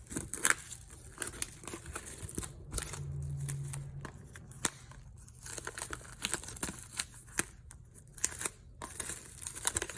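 K-pop album packaging being handled and torn open: crinkling, tearing and rustling of plastic and paper, with many irregular small clicks and crackles.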